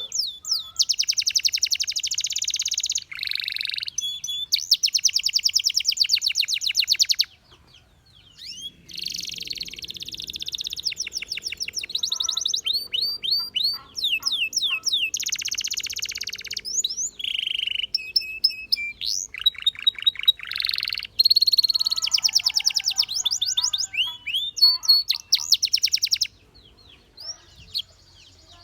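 Canary singing in long, fast trills and rolls of rapid repeated notes, high-pitched, broken into phrases with brief pauses; the song turns to quieter, scattered notes near the end.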